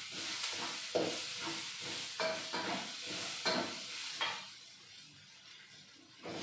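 Spice paste and lime leaves sizzling in hot oil in a metal pan while a spatula scrapes and stirs through it in quick strokes about every half second; the stirring stops for a moment from about four and a half seconds in, then starts again just at the end. It is the sauté stage of frying the paste until it smells fragrant.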